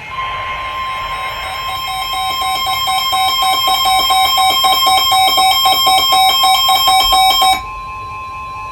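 NOAA Weather Radio's 1050 Hz warning alarm tone, a steady high tone that announces a new warning, here a severe thunderstorm warning. Over most of it a rapid electronic alarm beeps about five times a second, grows louder, and stops abruptly about a second before the end.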